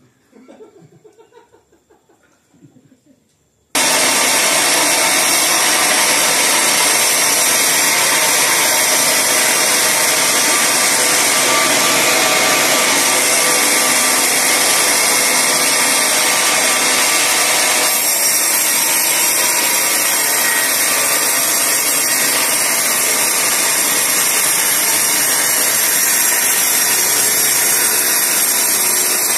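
Band sawmill cutting through a teak log, a loud, steady noise that starts suddenly about four seconds in and runs on without letting up.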